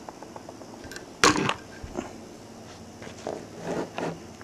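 Handling noise on a table: one sharp knock about a second in, followed by a lighter click and a few soft taps, as small metal motor parts and the camera are moved about.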